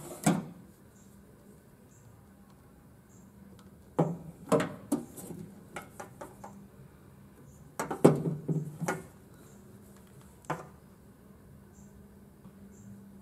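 Hand tools clinking and knocking on a hard countertop as wire crimpers are handled and squeezed to crimp butt-splice connectors onto a work light's wires. The clatter comes in short clusters about every four seconds, with one more single knock later, over a faint steady hum.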